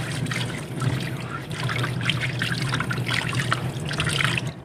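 Tap water running into a sink while hands rinse and splash pieces of fish under it; it stops abruptly near the end.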